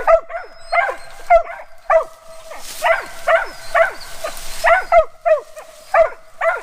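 Mountain cur squirrel dogs barking steadily at a treed squirrel, a run of short barks about two or three a second.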